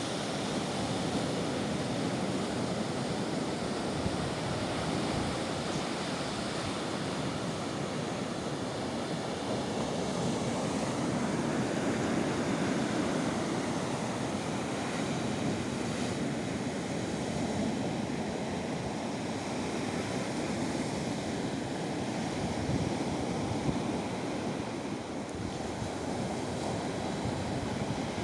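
Baltic Sea waves breaking and washing onto the shore: a continuous rush of surf that swells and eases slowly.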